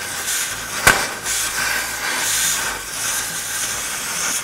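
Oxy-acetylene cutting torch blasting its jet through red-hot rusted steel bumper brackets: a steady hiss with one sharp pop about a second in, the popping typical of cutting rusted metal.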